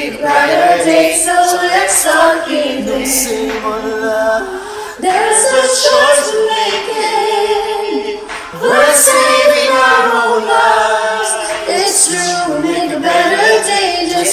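A mixed group of men's and women's voices singing together in harmony as a virtual choir, in long held phrases. Fresh phrases come in about five and about eight and a half seconds in.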